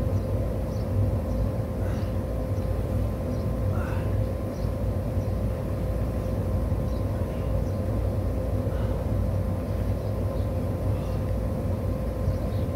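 Steady low rumble with a constant mid-pitched hum running under it, outdoor background noise with no clear single source.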